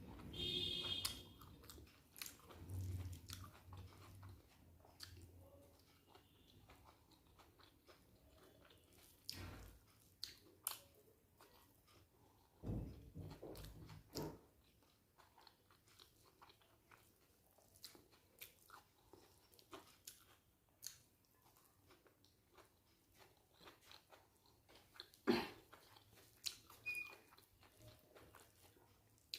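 A person chewing a mouthful of rice and scrambled eggs close to the microphone: faint, scattered wet smacks and clicks of the mouth, busier near the start, in the middle and near the end.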